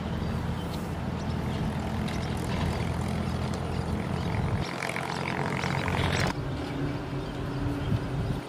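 A low, steady engine hum that drops away abruptly about four and a half seconds in and comes back about six seconds in.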